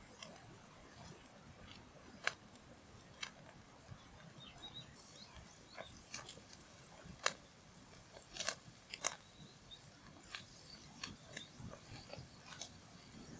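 A charcoal fire crackling and popping under a grilling marbled beef steak: scattered sharp pops at irregular intervals over a low, steady background.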